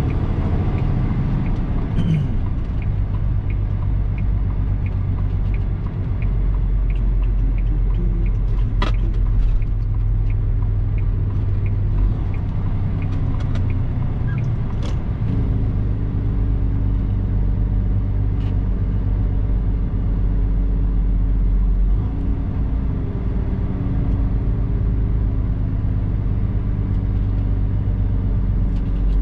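Diesel semi tractor running bobtail, heard from inside the cab: a steady engine rumble whose note changes a few times as it drives, with a couple of short sharp clicks or rattles.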